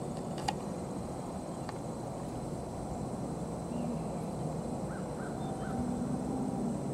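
Open-field ambience with a steady low rumble and faint hum. A sharp click about half a second in, and a distant bird calling three short times around five seconds in.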